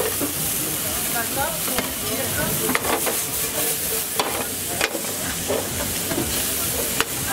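Chicken sizzling in a non-stick wok on a gas burner as chopped onion, carrot and pepper are tipped in and stir-fried with a plastic spatula. The frying runs on as a steady hiss, broken by a few sharp clicks of the spatula against the wok.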